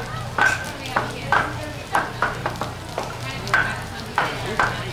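Vegetables sizzling on a hot teppanyaki steel griddle, with sharp, irregular clacks about twice a second as the chef's wooden shakers and tools strike the griddle during a juggling routine.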